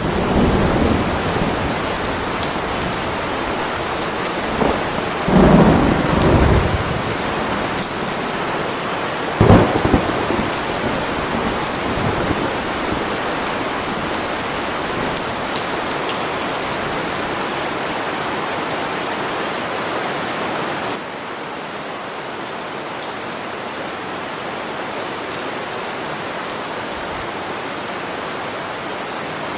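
Steady heavy rain with thunder: a rumble at the start, another about five seconds in, and a sharp crack of thunder about nine seconds in. About twenty seconds in the sound drops abruptly to quieter, steady rain alone.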